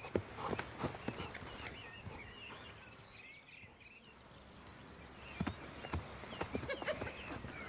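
Horse's hooves thudding on grass, first at a trot, then stopping after about a second and a half and starting up again past halfway as the horse moves off. Birds chirp in the quieter stretch between.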